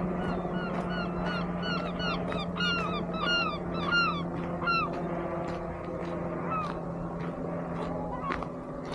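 A bird calling in a quick series of short notes that rise and fall in pitch, about two or three a second, stopping about five seconds in. Under it runs a steady low engine hum.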